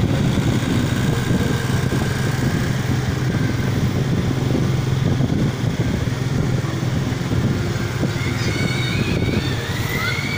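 Steady low engine hum and road rumble, heard from a moving vehicle at a constant speed.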